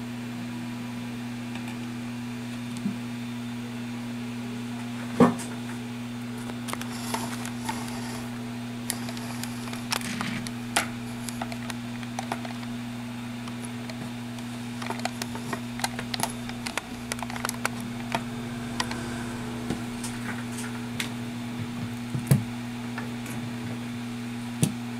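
Steady low two-tone hum of a small fan motor, with scattered light clicks and taps as phone parts are handled on a silicone mat; the sharpest tap comes about five seconds in.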